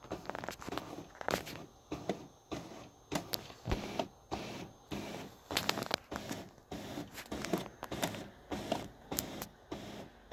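Irregular sharp clicks and light knocks, a few a second and of uneven loudness, with no steady motor running.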